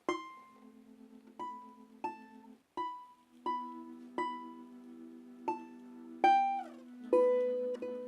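Balalaika playing an instrumental introduction, about ten single plucked notes with one sliding down in pitch near the end, over soft sustained chords from a bayan (button accordion).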